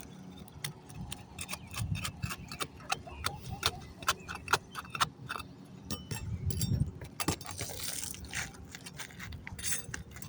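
Hand work on an asphalt shingle roof as shingles are taken off: many sharp, irregular clicks and taps, a few dull thumps, and a stretch of scraping about three-quarters of the way through.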